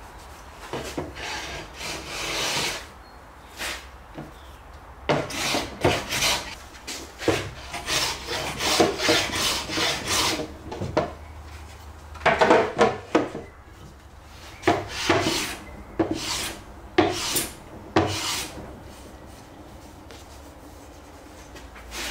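Hand plane shaving a hardwood frame: a series of short rasping strokes in runs with brief pauses, going quiet for the last few seconds.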